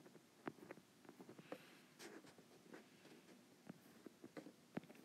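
Faint drawing on an iPad's glass touchscreen: a handful of light taps and short scratchy strokes as lines are drawn.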